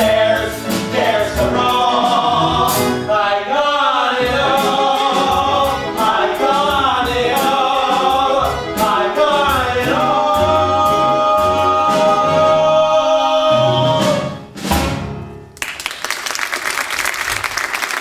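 Several voices sing a musical-theatre number over a live pit band. The song ends on a long held chord, with a sharp final band hit about fifteen seconds in, and then audience applause begins.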